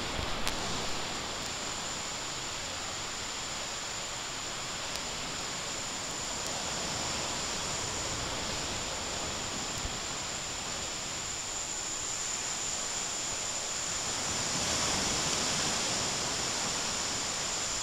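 Steady tropical forest ambience: an even rushing hiss with a constant high-pitched drone, typical of insects, running underneath it.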